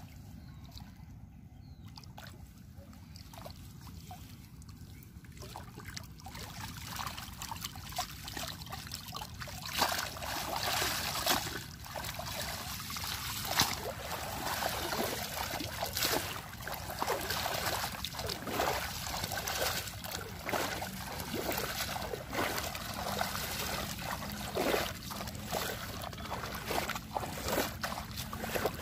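Shallow pond water splashing, sloshing and trickling as a cast net is hauled in and lifted out dripping, with wading through the water. Quiet for the first few seconds, then continuous splashing and dripping from about six seconds in.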